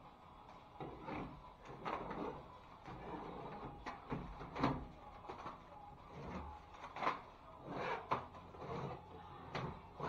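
Hand scraper or putty knife scraping peeling paper tape and joint compound off a drywall ceiling seam, in short irregular strokes roughly one or two a second.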